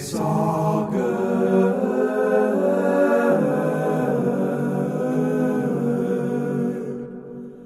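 Several voices singing together in harmony without instruments, then dying away about seven seconds in.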